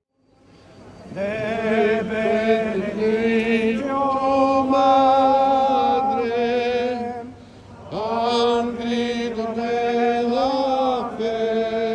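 Men's voices chanting together in unison, slow held notes of plainchant. The singing fades in about a second in and breaks for a breath about two-thirds through before the next phrase.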